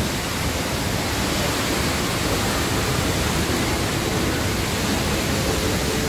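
Two-stream waterfall plunging into a pool, a steady rushing of falling water with no let-up. The falls are running unusually full.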